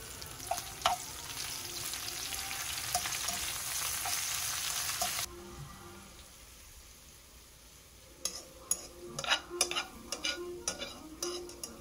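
Food sizzling and crackling in a hot frying pan, cutting off abruptly about five seconds in. About eight seconds in, a run of sharp clicks and taps begins.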